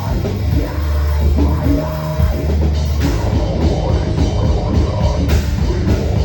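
Heavy metal band playing, recorded raw from a camera at the drum kit: drums and cymbals close and loud over a dense low bass, with crashes about three seconds in and again near the end.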